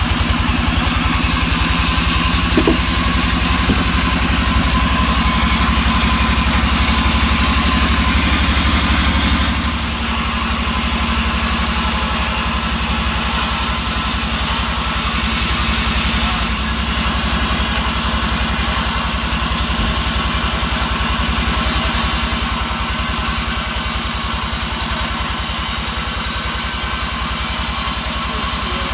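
Engine-driven sawmill running steadily while sawing a pine log, an engine note under a hiss of cutting. The engine note shifts about ten seconds in.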